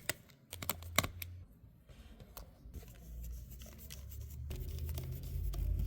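Sharp clicks and taps of small tools and parts being handled while a MacBook is reassembled, over a low rumble that builds up in the second half.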